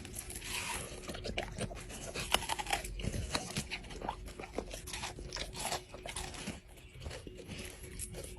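A dog chewing and biting into watermelon: a quick, irregular run of crunches and wet bites.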